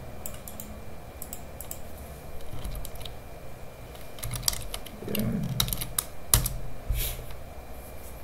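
Typing on a computer keyboard: irregular runs of keystroke clicks, coming thicker and louder in the second half.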